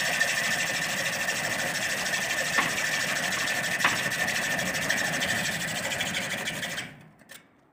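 A steady, motor-like mechanical noise with a high whine, running evenly and cutting off suddenly about seven seconds in.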